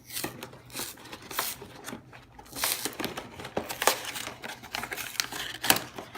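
Packaging of a Pokémon card collection box being opened and dug into by hand: irregular crinkling and rustling with scattered sharp clicks and taps.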